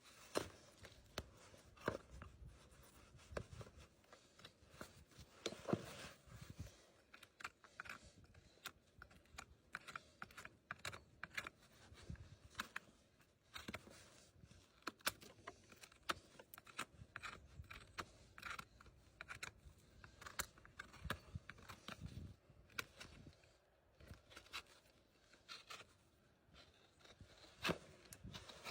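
Hoof trimming: irregular scraping, snipping and cutting of farrier's tools on the horn of a horse's hoof, in short uneven strokes.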